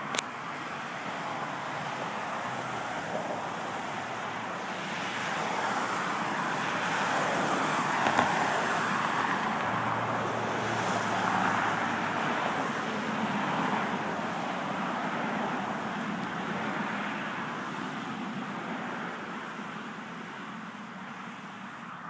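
Road traffic noise that swells in the middle, peaking about halfway through, then slowly fades.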